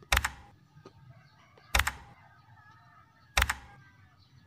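Three sharp mouse-click sound effects, each a quick double click, evenly spaced a little over a second and a half apart, marking taps on a subscribe button and notification bell.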